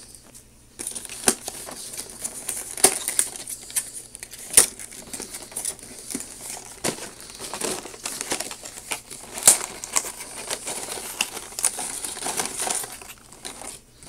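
A cardboard phone retail box being opened by hand: rustling and crinkling of the packaging, with sharp snaps and clicks of cardboard and plastic all through.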